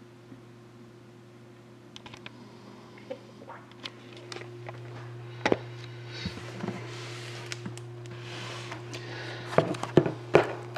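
Light handling noise: scattered clicks and knocks, with a stretch of rustling about two-thirds of the way in and a few louder knocks near the end, over a steady low electrical hum.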